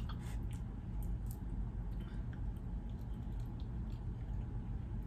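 Chewing and small wet mouth sounds of someone eating a chicken wing flat, over a steady low hum.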